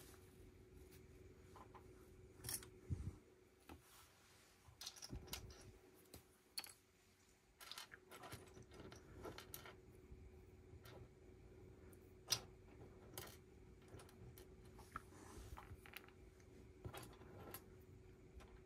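Plastic Lego bricks being handled and snapped together: a scattering of light clicks, clinks and short rattles, with one sharper click about twelve seconds in. A faint steady hum lies underneath.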